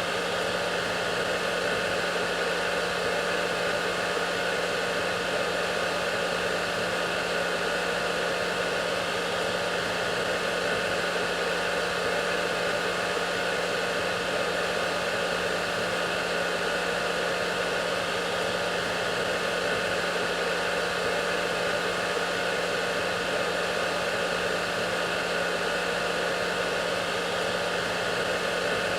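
Hair dryer running steadily: an even rush of blown air with a constant low motor hum and a faint steady whine in it, never changing.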